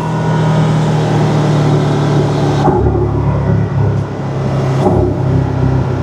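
Porsche 718 Cayman's turbocharged flat-four engine running under way, its intake sound carried through an aftermarket RaggDoll Motorsports turbo inlet pipe. The note changes briefly about two and a half seconds in and again about five seconds in.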